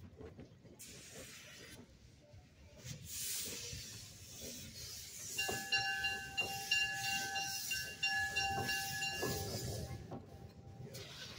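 Narrow-gauge steam train rolling past: the 1937 Porter 0-4-0T locomotive hissing steam, with a high squeal of several steady tones plus scattered clicks from about five seconds in that die away near the end.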